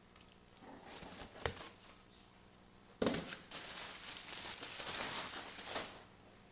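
Hand tools and metal parts being handled during work on a motorcycle: a sharp knock about a second and a half in, then a sudden clatter followed by nearly three seconds of rustling and scraping.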